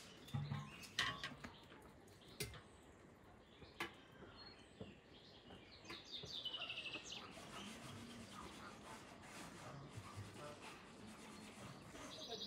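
Light, sharp clinks of glass jars and a metal cup being handled, a handful of them in the first four seconds. About halfway there is a short falling bird chirp.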